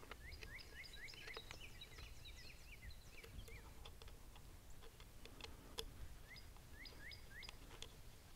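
Faint bird calls: two runs of short, quick chirps, about four a second, with a pause between them. A few light clicks come from an Allen wrench tightening small bolts on a crossbow's fore-end bracket.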